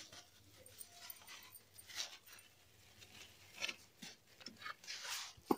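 Faint, intermittent rustling of a thin plastic bag being handled while food is packed into it: a few soft rustles, with a short sharper one near the end.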